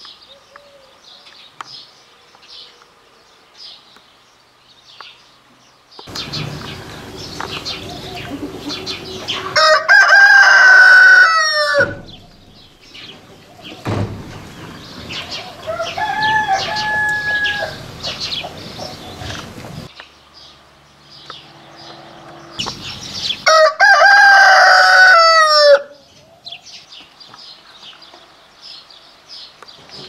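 Roosters crowing: two loud crows about ten and twenty-four seconds in, and a softer crow in between. Hens cluck in the quieter stretches.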